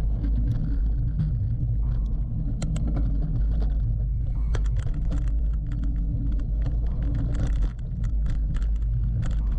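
Mountain bike ridden hard along a dirt race trail, picked up by a GoPro: a steady low rumble of tyres and wind on the microphone, with frequent quick rattles and clicks from the bike and trail.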